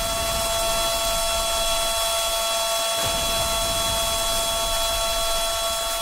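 Outdoor warning siren sounding a steady tone held at one pitch, several notes at once, over the steady hiss of falling rain.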